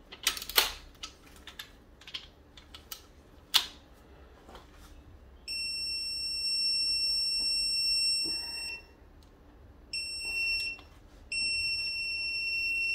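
A few ratchet clicks, then an electronic torque tool beeping in long steady high tones, three times, while main bearing bolts are tightened on a BMW M54 engine block. The beep signals that the bolt has reached the set torque.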